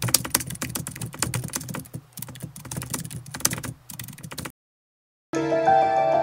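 Typing sound effect: rapid key clicks for about four and a half seconds, stopping abruptly. After a short silence, intro music starts near the end.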